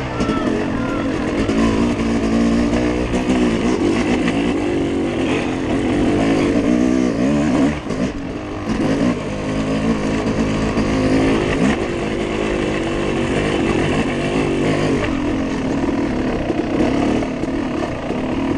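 Dirt bike engine, heard close up from the rider's own machine, revving up and down as it is ridden hard along a wooded trail. Its pitch keeps climbing and dropping with the throttle and gear changes, with a brief dip near the middle.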